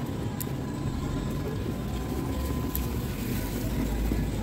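Wind rumbling on the microphone over steady outdoor street noise, the rumble swelling stronger near the end.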